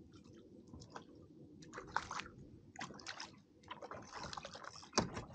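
Small tailor splashing at the surface as it is reeled up beside a kayak, in several short splashes, with a sharp knock about five seconds in.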